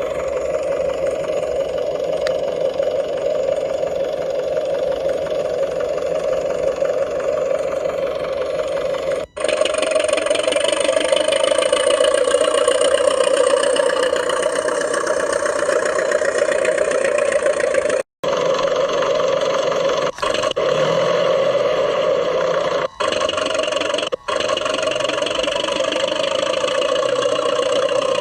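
RC model DT-54 crawler bulldozer running steadily under load, a continuous mechanical drive sound. It is interrupted by a few sharp, instant dropouts.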